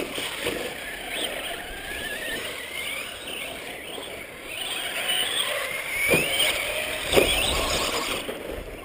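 Radio-controlled off-road truck's motor whining, rising and falling in pitch with the throttle, heard from on board, with rumble from the tyres on dirt. Two knocks come about a second apart past the middle.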